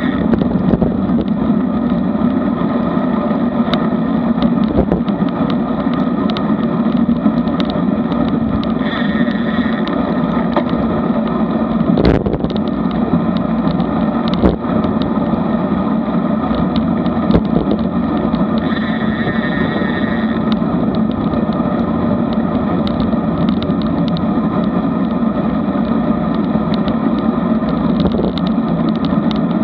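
Wind rush and road rumble on a bike-mounted action camera riding a road bike on asphalt at about 16 to 20 mph. Scattered knocks come from bumps in the road, the strongest about twelve seconds in.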